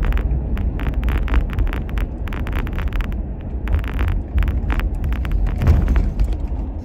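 Car driving, heard from inside the cabin: a steady low road and engine rumble, with many short clicks and rattles over it.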